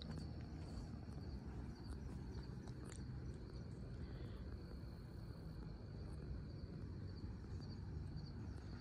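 Crickets trilling steadily, one continuous high note, over a faint low rumble.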